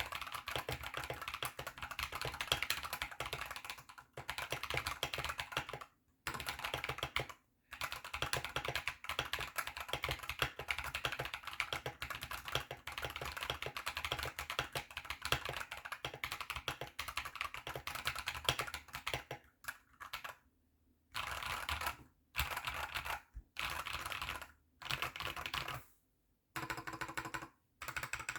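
Fast typing on a mechanical keyboard with Akko Ocean Blue switches in a bamboo case, loud and clacky keystrokes in a steady stream. Near the end the typing breaks into short bursts with pauses between them.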